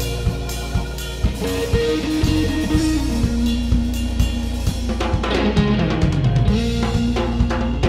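Background music with a steady drum-kit beat, about two hits a second, under held bass and melody notes.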